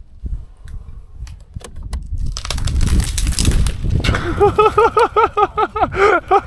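A loud crash of branches, about two seconds in, as a person falls out of a tree, followed by quick, repeated bursts of laughter.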